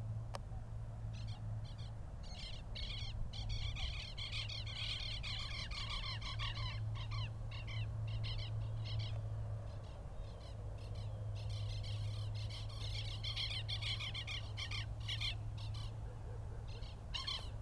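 Birds calling in dense runs of quick, repeated high chirping notes, pausing briefly about ten seconds in before starting up again, over a steady low hum.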